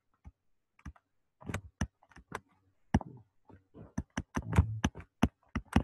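A stylus tip tapping and clicking on a pen tablet during handwriting: a series of short, sharp taps, sparse at first and coming faster from about four seconds in.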